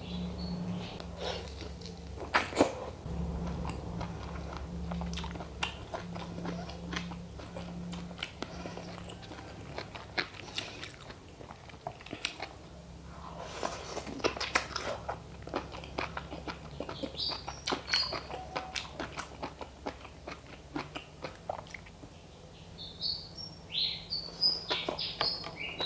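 Close-miked chewing and biting of food: repeated wet clicks and mouth smacks, coming in clusters, over a steady low hum.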